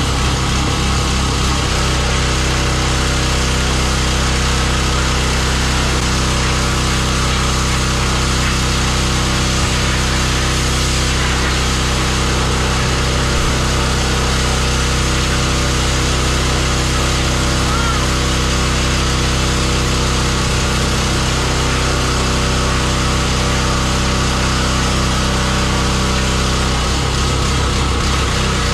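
Small-engine pressure washer running steadily at a constant pitch, its engine drone under the hiss of the high-pressure water spray.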